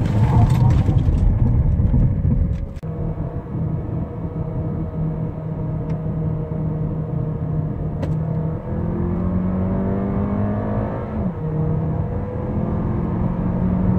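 Volkswagen Tiguan's 1.5 TSI four-cylinder engine running while the car is driven, with road rumble. The engine note rises for about two seconds and falls back about eleven seconds in.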